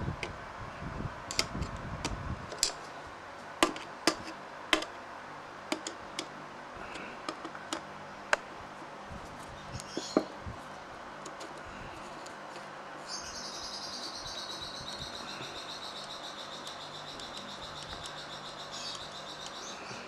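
Small metal clicks and taps of a screwdriver and carburetor parts being handled on a carburetor body, several of them sharp and separate. About thirteen seconds in, a high, rapidly pulsing trill starts in the background and keeps going until nearly the end.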